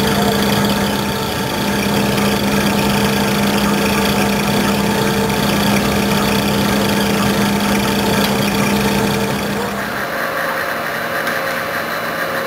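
Hwacheon VT 4500 vertical turning lathe taking a heavy roughing cut on a steel ring: a steady machining drone with a constant low hum. About ten seconds in, the sound changes to a different steady machine noise with a higher whine.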